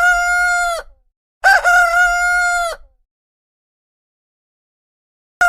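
Rooster crowing: a crow is already under way at the start, a second, longer crow comes about a second and a half in, then silence until a third begins at the very end. Each call is loud and held at a steady pitch before dropping away.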